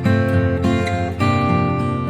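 Acoustic guitar music, chords struck and ringing, with a new chord about a second in.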